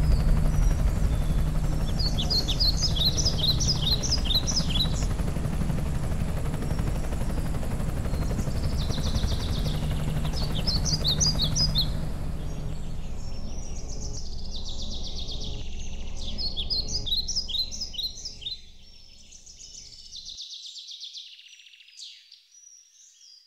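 A low, steady rumble slowly fades away over the first eighteen seconds or so, while a songbird sings short bursts of quick falling chirps. Near the end the bird's song goes on alone.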